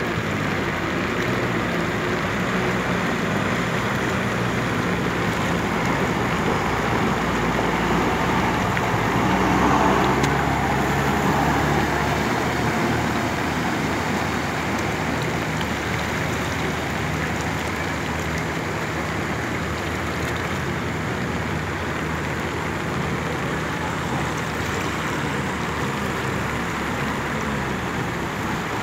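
Steady rush of heavy rain and flowing floodwater, with a motor vehicle's engine running under it. The sound swells briefly about ten seconds in.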